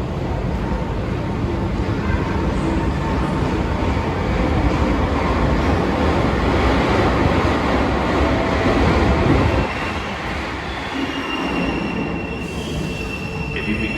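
SMRT C151 metro train running through the station with a loud rumble of wheels and motors that builds, drops off suddenly about nine and a half seconds in, then gives way to a high steady whine-squeal. This is the horrible noise this particular train set made, of unknown cause and later fixed.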